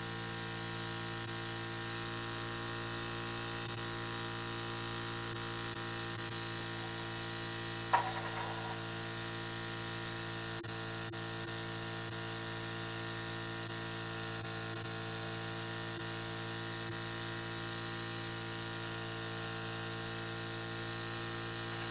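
Small homemade vertical model steam engine with about 5/16-inch bore and stroke, running at high speed: a steady, even buzzing whir like a little electric motor, with a steady high hiss over it.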